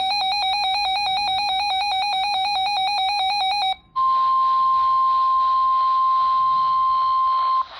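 A weather alert radio's electronic alarm beeping rapidly for about three and a half seconds. It then switches to the received broadcast: the steady 1050 Hz NOAA Weather Radio alert tone over radio static for about three and a half seconds, which signals that a warning announcement is about to follow.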